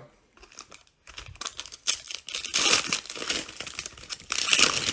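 Wrapper of a 2021 Donruss Optic football card pack crinkling as it is handled and torn open by hand, in irregular rustling bursts that start about a second in and grow louder near the end.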